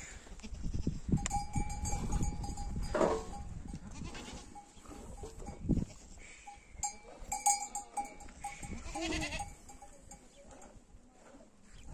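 Bells on a herd of goats clinking on and off, with goats bleating briefly a couple of times.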